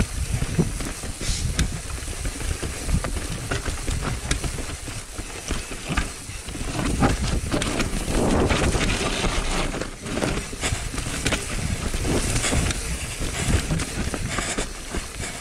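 Mountain bike descending a trail: a steady rush of tyres rolling over wet leaves and dirt, with constant clatter, knocks and clicks from the bike over bumps.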